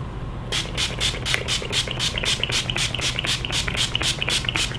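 Finger-pump mist bottle of Milk Makeup Blur Spray setting spray being spritzed rapidly at the face: about twenty quick, short hissing sprays at roughly five a second, starting about half a second in and stopping just before the end.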